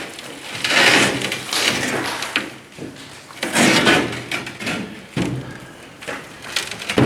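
Quarter-inch steel floor plates being slid and handled: a few scraping clanks of steel on steel, with a sharp clank near the end.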